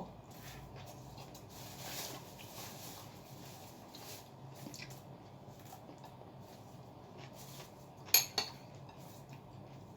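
Utensils clinking against dishes during a meal: faint scattered taps, then two sharp clinks about eight seconds in.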